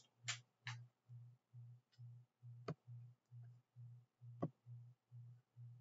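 Near silence: a faint low hum pulsing about twice a second, with a few soft clicks, two of them sharper, one a little before the middle and one about three-quarters through.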